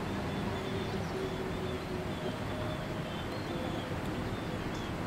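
Steady low rumble of an electric locomotive hauling a goods train, still some way off as it approaches, with faint bird chirps repeating high above it.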